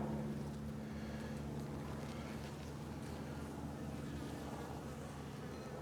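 Honeybees from an opened hive humming: a steady, low drone.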